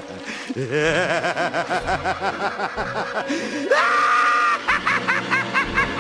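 Maniacal cackling laughter in quick rhythmic bursts. It rises into a held high-pitched shriek about two-thirds of the way in, then breaks back into cackling.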